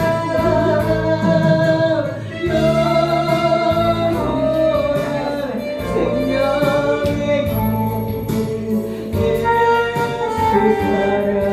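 Gospel song: singing in long held notes over instrumental accompaniment.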